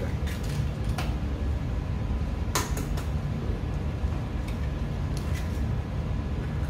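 Eggs being cracked on the rim of a metal ramen pot: a few short, sharp taps and clicks, the loudest about two and a half seconds in, over a steady low rumble.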